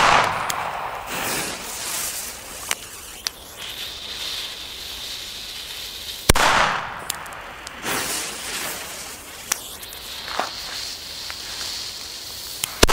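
Funke 'Blauer Berber' firecrackers going off: the echo of a bang just before the start dies away, then two sharp single bangs, one about six seconds in and one right at the end, with a few small pops between. The bang is fairly bright rather than piercing.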